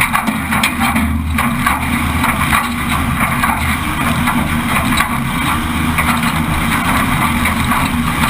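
Off-road race vehicle heard from inside the cab. Its engine runs steadily under load while the chassis rattles and knocks over rough terrain.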